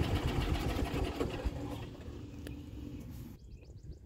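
Golf cart driving, its motor and body giving a steady fast rattle and rumble that dies down about halfway through.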